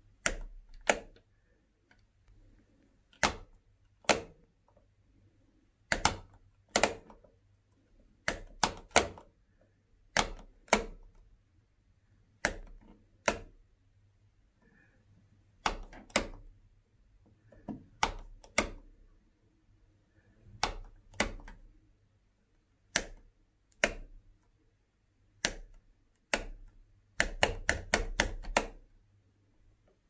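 Two-gang wide rocker wall light switch being pressed on and off, switching the room lights. Sharp plastic clicks, mostly in pairs less than a second apart with pauses of about two seconds between, then a quick run of about eight clicks near the end.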